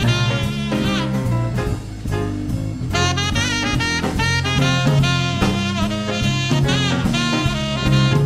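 Saxophone solo played live over electric bass and drum kit: quick runs of notes with bends, breaking off briefly about two seconds in before starting again.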